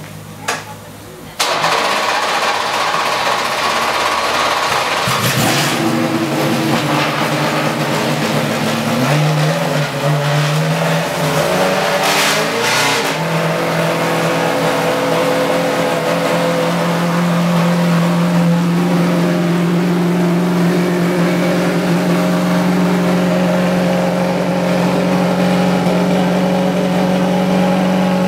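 Judd racing engine of a 2002 Arrows Formula One car starting up. It fires suddenly about a second and a half in, runs unevenly with its pitch rising and falling and a couple of short sharp revs, then settles into a steady idle.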